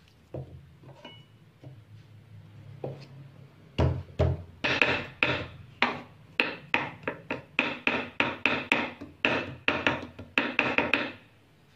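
A kitchen knife mincing garlic on a wooden cutting board: sharp, rapid knocks of the blade on the board, about four a second. The knocks start about four seconds in after a few softer knocks and stop shortly before the end.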